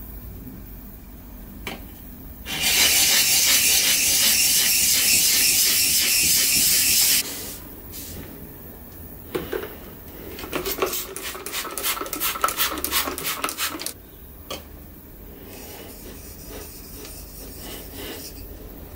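A loud, steady spray hiss for about four and a half seconds, water sprayed onto a diamond sharpening plate. Later comes a quick run of short scraping strokes for about three seconds, steel rubbed back and forth on the wet plate.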